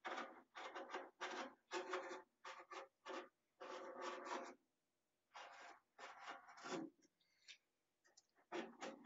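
Metal spatulas scraping and spreading ice cream on a frozen ice-cream-roll plate in short, irregular scraping strokes. One stroke about four seconds in is longer, and there is a pause of about a second and a half near the end.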